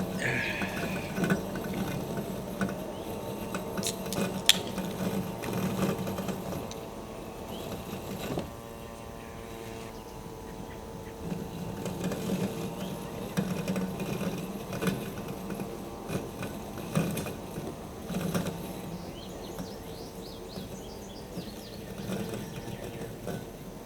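Husqvarna Automower 430XH robotic lawn mower running, its electric motors whirring steadily over an uneven low rumble, with a few scattered clicks.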